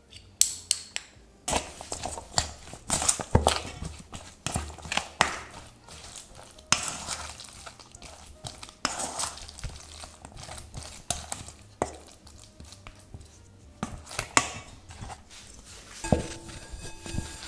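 A spoon mixing raw ground pork filling with chopped onion in a stainless steel bowl: wet, sticky mixing with irregular clicks and scrapes of the spoon against the metal. Near the end, a cloth tea towel rustles as it is laid over the bowl.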